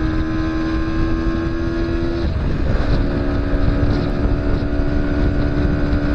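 Motorcycle engine running steadily at road speed, with wind rumbling on the microphone. A little over two seconds in, the engine note breaks off for about half a second, then comes back at a slightly different pitch.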